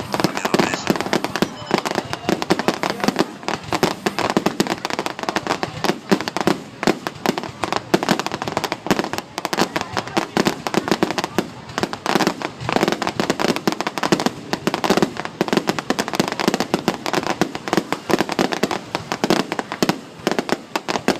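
Fireworks going off in a dense, rapid string of bangs and crackles, many a second, without a break.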